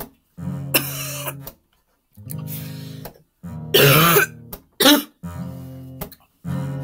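A person coughing and clearing his throat in a few harsh bursts, the loudest about four seconds in, from the burn of a whole fried jalapeno. Acoustic guitar background music plays in chord blocks with short breaks underneath.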